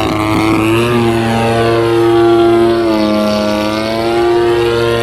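Radio-controlled aerobatic airplane's motor and propeller running hard, with a steady whine whose pitch dips and rises twice as the throttle is worked through a wall and waterfall maneuver.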